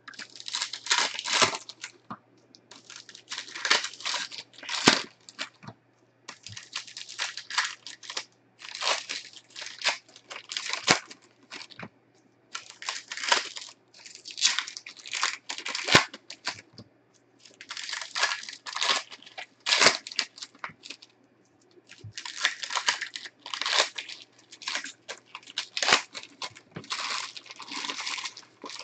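Trading-card pack wrappers being torn open and crinkled by hand, one pack after another. The sound is a crackly rustle that comes in repeated bursts with short pauses between.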